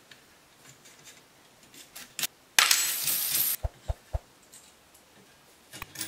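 Small metal parts of a homemade belt sander's tensioner arm being handled and fitted: light clicks and clinks of aluminium plates, bolts and a steel tension spring. About two and a half seconds in there is a second-long scraping rattle, followed by three short dull knocks.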